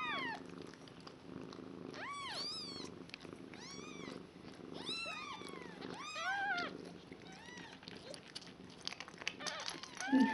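Newborn kittens mewing, repeated short high squeaks that each rise and fall in pitch, coming every second or two, over a low, steady purring while they nurse.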